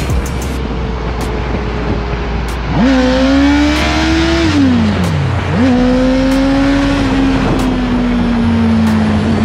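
Honda CB650R's inline-four engine under way, revving up about three seconds in, the revs dropping away, then picking up again and slowly easing off, over steady wind noise.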